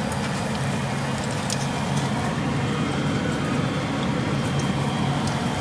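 Dough sticks deep-frying in a pot of hot oil: a steady sizzle with small scattered crackles, over a low steady hum.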